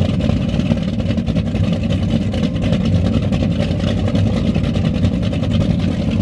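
Cigarette offshore race boat's inboard engines idling at the dock: a steady, loud, low exhaust rumble with fast even pulsing.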